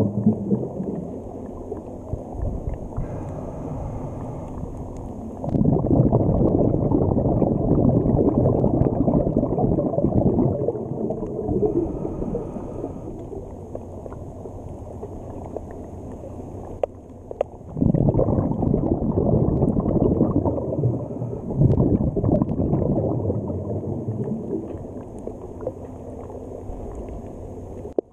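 Muffled underwater rushing and gurgling of water and bubbles, heard through a submerged camera. It swells into two long surges, one about five seconds in and one about eighteen seconds in.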